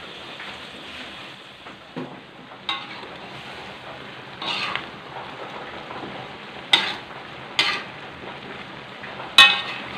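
A metal spatula scraping and clanging against a metal wok as a stir-fry of green beans, tempeh and cuttlefish sizzles steadily. Several sharp ringing clangs, the loudest near the end.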